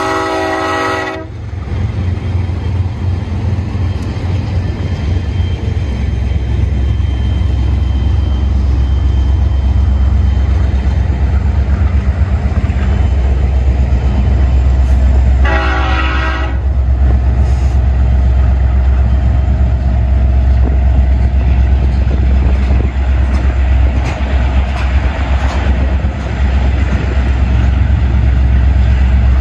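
Freight train with BNSF diesel locomotives passing close, a loud deep rumble that grows a little louder. The locomotive's multi-note chord horn cuts off about a second in, and it sounds again in one short blast about halfway through.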